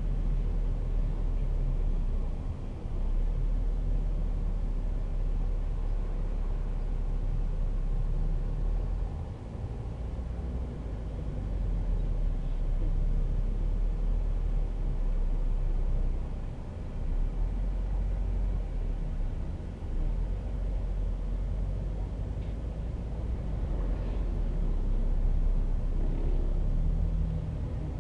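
Taxi car driving through city traffic, heard from inside: a steady low engine and road rumble that dips briefly a few times.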